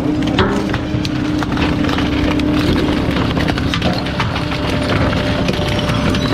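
Rear-loader garbage truck's hydraulic packer blade sweeping through the hopper and crushing wooden boards and household debris: a steady mechanical hum and rumble from the running compactor, with a constant crackle of wood splintering and snapping.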